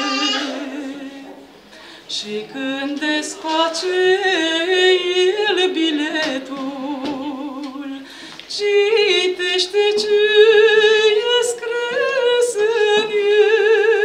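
A woman singing a Romanian Orthodox pricesne (a religious folk song) solo, in long drawn-out phrases with a wide vibrato. A low note fades away near the start, then the singing resumes and settles on a higher held note from a little past halfway.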